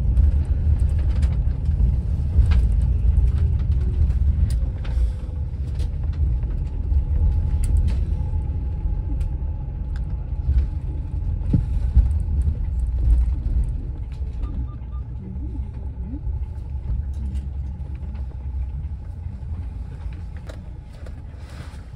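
Low rumble of a moving road vehicle heard from inside its cabin, with a faint steady whine through the middle and a few small clicks and rattles. The rumble eases off over the last few seconds as the vehicle slows.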